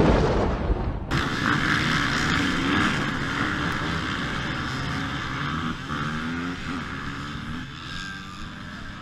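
A deep boom sound effect ends about a second in. Then a pack of petrol motocross dirt bikes runs at the start line, several engines revving up and down together.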